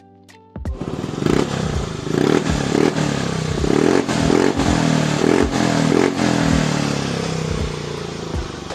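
Yamaha Mio i125 scooter's single-cylinder engine running through a JVT Power Pipe aftermarket exhaust, starting loud after about half a second and revved in a series of quick throttle blips, then easing down near the end.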